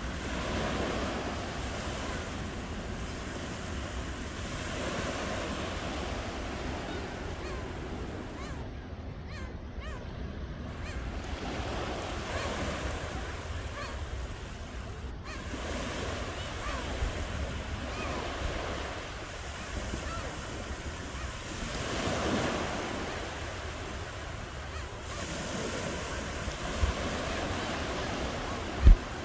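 Ocean waves breaking and washing on the shore, the surf swelling and easing every few seconds over a steady low rumble of wind on the microphone. A short low thump sounds near the end.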